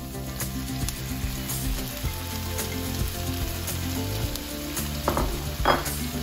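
Diced onions and freshly added diced tomatoes frying in hot oil in a pan, a steady sizzle, with two short clatters about five seconds in.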